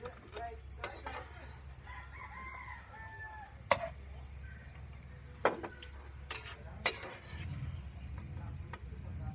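Cooking utensil stirring and scraping in a pan of frying food, with a few sharp clinks against the pan. A rooster crows faintly about two seconds in.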